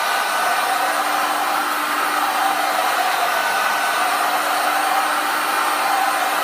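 Handheld electric heat gun running steadily, its fan blowing a rush of hot air, with a faint steady hum beneath it.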